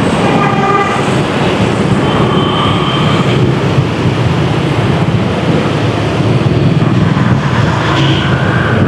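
Rush-hour city street traffic: engines and road noise running steadily, with vehicle horns sounding briefly near the start, again about two to three seconds in, and near the end.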